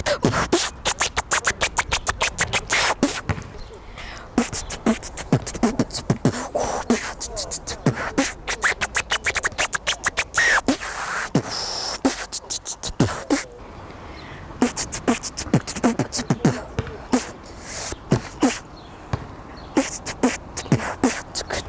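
Beatbox-style vocal percussion: fast, uneven runs of sharp clicks and snaps over short bass thumps, with brief lulls about three seconds in and again about thirteen seconds in.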